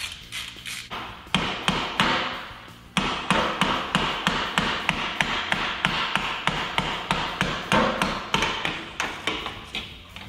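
Plastic hammer tapping repeatedly on the motorcycle's top bridge, about three blows a second, to knock loose a part that is stuck tight. The taps begin a little over a second in and grow louder from about three seconds in.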